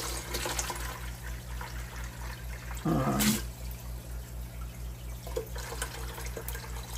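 Aquarium water running through a clear siphon tube and trickling and dripping into a bucket, over a steady low hum. A brief louder burst comes about three seconds in.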